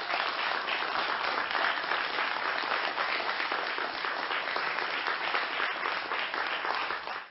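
Audience applauding: many people clapping at once, holding steady, then cutting off suddenly at the end.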